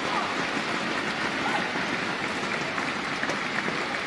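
Arena crowd applauding after a point, a steady clatter of clapping.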